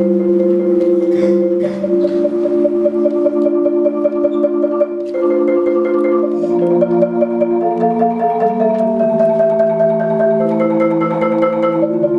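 DeMorrow 4.3 Studio concert marimba played with yarn mallets in rolled chords: each chord is held by rapid repeated strokes, and the harmony moves to a new chord every second or two.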